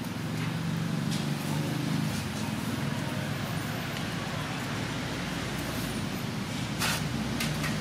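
A motor engine running with a steady low hum, with one short sharp click near the end.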